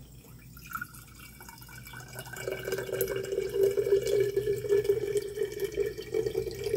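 Fermented comfrey tea fertilizer running from a bucket's plastic spigot into a glass container, the stream starting about two seconds in and running steadily.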